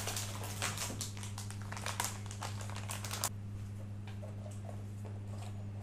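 Plastic wrapping crinkling with light clicks and taps as a boxed keyboard and its clear plastic dust cover are handled; the handling noise dies down after about three seconds. A steady low electrical hum runs underneath.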